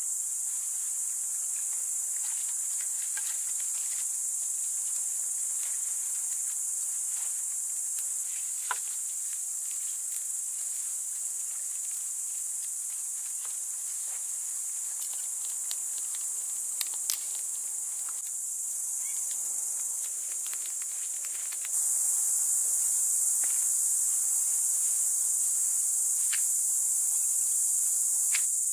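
Dense evening chorus of crickets, a steady high-pitched trill that becomes louder about three-quarters of the way through. Scattered faint crackles and snaps from a freshly lit twig campfire sound now and then.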